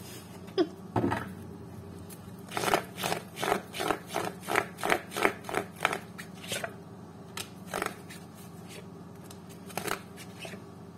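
A deck of tarot cards being handled and shuffled by hand. There are a couple of light taps, then a quick run of soft slapping strokes at about three a second for some four seconds, then a few single taps.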